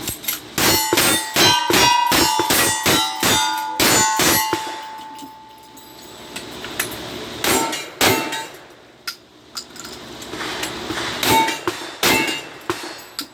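Gunshots and steel targets clanging and ringing. A fast run of about a dozen hits in the first four and a half seconds leaves a steady ring hanging, then scattered single shots and clangs follow.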